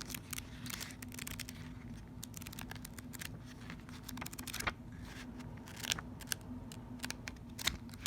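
Hands handling a cardboard oracle card box, its guidebook and cards: scattered taps, scrapes and paper rustles over a steady low hum.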